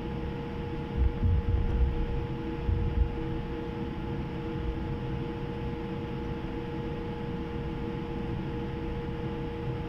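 Cabin noise inside a Boeing 787-8 taxiing after landing: a steady hum with a few fixed tones. A handful of low thumps come between about one and three seconds in.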